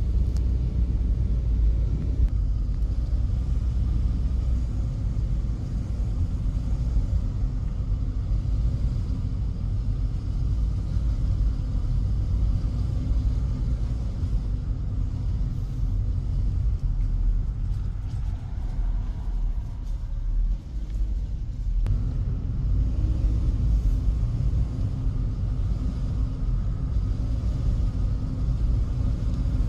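Steady low rumble of a vehicle on the move, engine and road noise together, with a faint steady hum above it. It eases off briefly a little past the middle, then comes back up.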